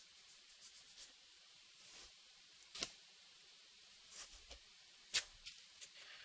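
Light handwork on a wooden knife handle: a few short scratchy scrapes and sharp taps. The two loudest clicks come about three and five seconds in.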